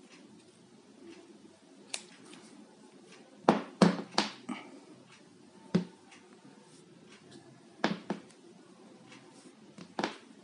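Aluminium bicycle kickstand knocking and clicking against a glass tabletop as it is handled: a scattering of sharp knocks, the loudest cluster about three and a half to four and a half seconds in, with single knocks later.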